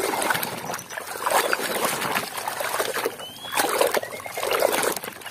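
A hand sloshing and rummaging through thick muddy water in a plastic bucket, with uneven splashing and dripping as plastic toys are stirred and lifted.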